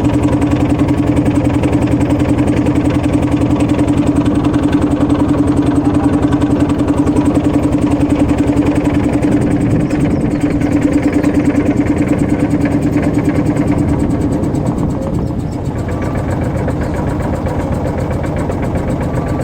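Motorboat engine running steadily with a low, even drone, easing off slightly near the end.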